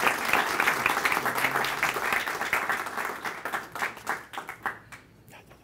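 Audience applauding, the clapping thinning out over the last couple of seconds to a few scattered claps and stopping about five seconds in.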